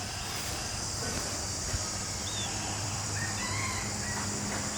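Outdoor ambience: a steady low hum under an even hiss, with a few faint high chirps about halfway through.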